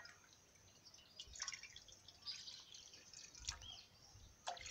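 Faint drips and splashes of water poured into a shallow aluminium skillet, with scattered short ticks as the last drops fall in.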